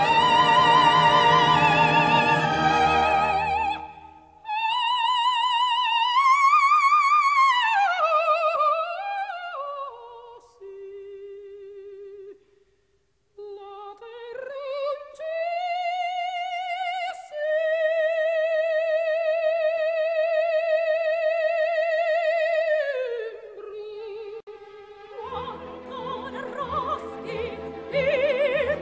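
Operatic soprano singing an aria with orchestra. About four seconds in, the orchestra drops away and she sings alone in long held notes with wide vibrato. There is a brief pause about halfway, then a long sustained high note, and the orchestra comes back in near the end.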